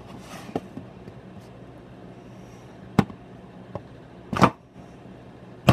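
Three sharp knocks of a hard object striking an old Motorola phone on a desk, about a second and a half apart, with a couple of faint taps before them. The phone is being deliberately damaged.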